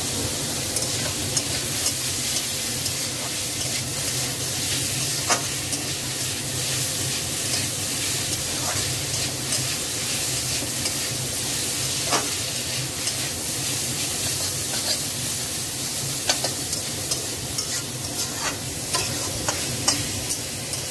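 Sliced snake gourd frying in oil in a metal kadai, a steady sizzle, as a metal spatula stirs it with irregular scraping clicks against the pan.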